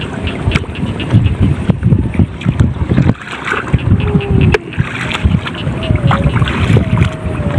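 Wind buffeting the microphone in uneven gusts, with splashing of feet wading through shallow muddy paddy water and a few sharp clicks.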